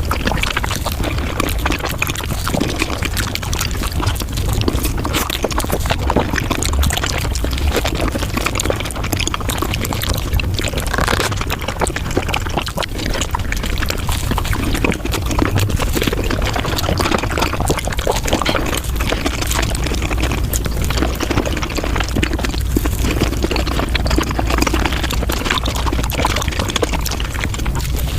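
Close-miked eating sounds of a Japanese fruit sandwich (soft bread, whipped cream and fruit) sped up five times: chewing and wet mouth smacks run together into a dense, rapid crackle with no pauses.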